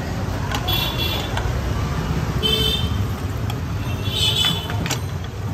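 Slotted steel spatula clicking and scraping against an aluminium frying pan as bread slices are pressed and turned, over a steady low rumble. Three short high toots sound in the background, about a second, two and a half seconds and four seconds in.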